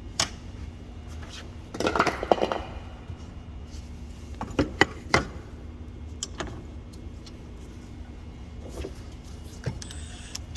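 Scattered clicks, knocks and light metallic clinks of tools, a lag bolt and a wooden block being handled and set in place, over a steady low hum.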